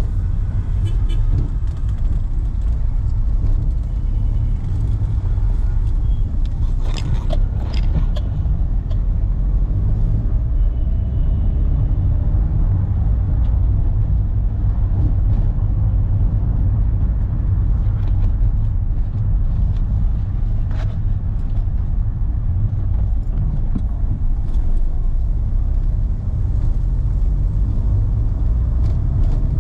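2011 Renault car driving in traffic: a steady low rumble of engine and road noise heard from inside the cabin, with a few short sharp noises about a quarter of the way in and again about two-thirds of the way through.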